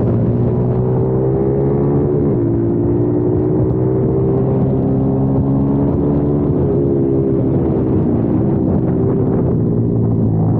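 Kayo TT 140 pit bike's single-cylinder four-stroke engine running hard on track. The pitch dips sharply and climbs back about three times as the throttle is rolled off and back on.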